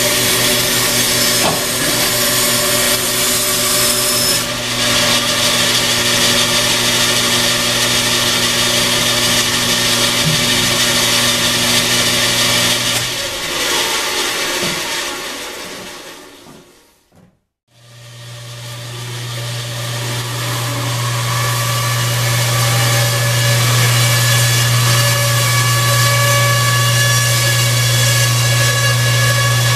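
Rebuilt bandsaw running with its blade cutting wood, a steady motor hum over the sawing. It fades out about halfway through and comes back in at full level, steady again, a second later.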